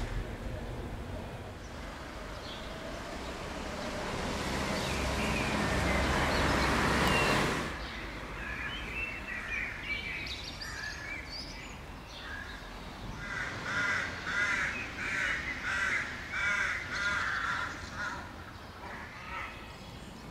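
A swelling rush of noise that cuts off suddenly about seven and a half seconds in, followed later by a crow cawing: a run of harsh calls repeated at an even pace, with a few smaller bird chirps before them.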